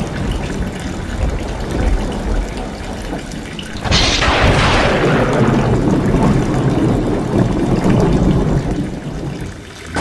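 Heavy rain with a stream of runoff water pouring off roof tiles and splashing below. About four seconds in the sound suddenly grows louder and brighter, then eases off over the next couple of seconds.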